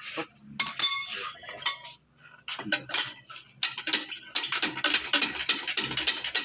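Metal hand tools clinking against a stripped engine block, with short ringing strikes early on. About halfway in a rapid, continuous clicking begins as a wrench is worked on the flywheel bolts.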